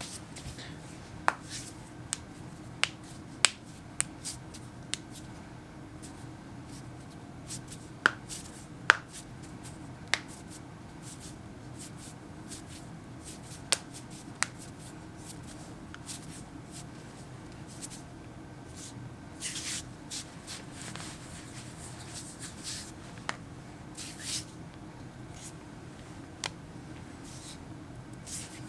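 Knuckles cracking: a run of sharp single pops, coming quickly in the first ten seconds and then only now and then. Short rubbing rustles of hands come in between.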